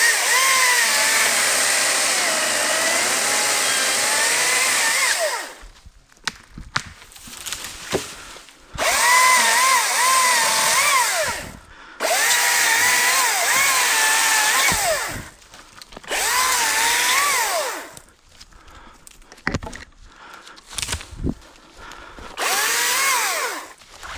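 ECHO DCS-2500T battery top-handle chainsaw running in five bursts, its motor whine dipping and recovering in pitch as the chain cuts into wood.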